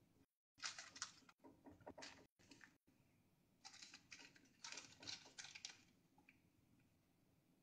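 Faint scraping and rustling of a spatula spreading a thick mixture over a parchment-lined baking tray, in two short spells of quick strokes, the first about half a second in and the second around the middle.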